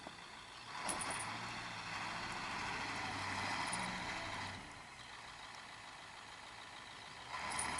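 UPS delivery truck's engine revving as its wheels spin in deep snow, trying to get unstuck. The revving and spinning swell about a second in, ease off after about four and a half seconds, and pick up again near the end.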